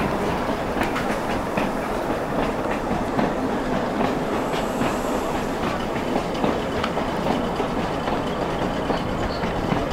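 Tram running along its track, heard from on board: a steady rumble of wheels on rail with frequent sharp clicks and clacks.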